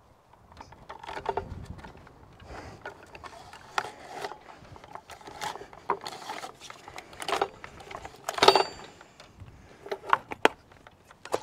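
Stihl MS-500 chainsaw with a 24-inch bar rubbing, scraping and knocking against a metal chainsaw carrier as it is worked into the holder. The loudest is a sharp metal clank about eight and a half seconds in that rings briefly.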